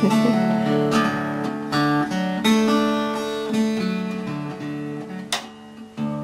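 Wood-bodied resonator guitar being fingerpicked: single notes and small chords start about once a second and ring on into one another. There is a single sharp click about five seconds in.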